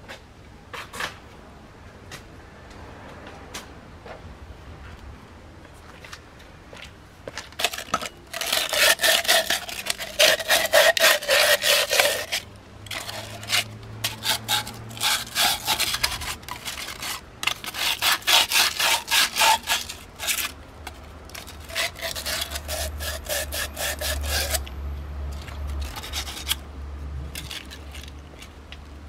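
Rapid back-and-forth scraping strokes by hand on a coolant thermostat housing, in three spells starting about eight seconds in: scrubbing off calcium deposits left by running tap water as coolant.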